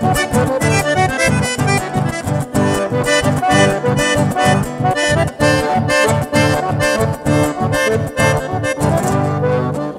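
Chamamé played live on a button accordion, with acoustic guitar accompaniment over a quick, steady bass pulse.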